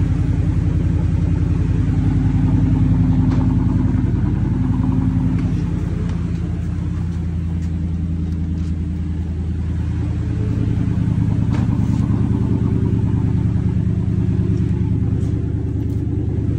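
Pickup truck engine idling with a deep, steady exhaust pulse. It drops back a little in the middle for a few seconds, then comes back up.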